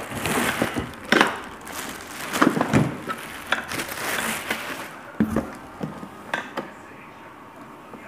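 Clear plastic bag wrapping crinkling and crackling as a vacuum cleaner is pulled out of a cardboard box and unwrapped, with a few sharp knocks of handling. The crinkling dies down in the second half.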